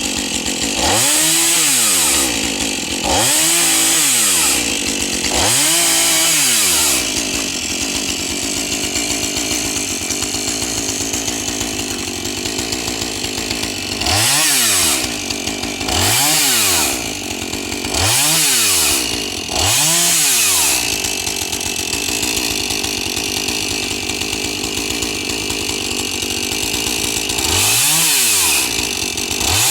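Two-stroke chainsaw revving up hard and dropping back again and again, roughly every two seconds: three revs early, four in the middle and one more near the end, with stretches of steadier running between.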